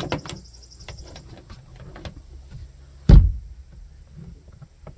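An under-seat storage access panel on a boat thumps shut once, about three seconds in, after a few light clicks and rustles of cord and hatch being handled.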